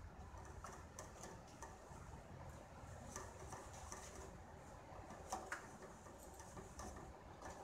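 Faint, scattered ticks and scrapes of a wooden spatula stirring thick cream gravy in a metal pan as it cooks.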